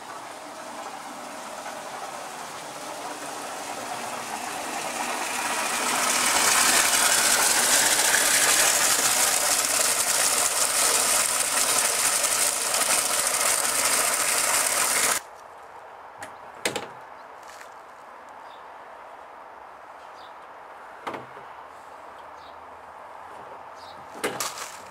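Water from a garden hose jetting into an empty plastic wheelie bin: a loud hiss that builds over the first six seconds, then cuts off suddenly about fifteen seconds in. After that, a few sharp knocks as the outboard motor is handled onto the bin's rim.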